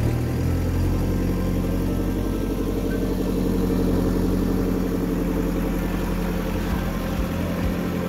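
JCB 3CX backhoe loader's diesel engine running under load as the machine drives with a raised, full loader bucket. It picks up in pitch about half a second in, then holds a steady note.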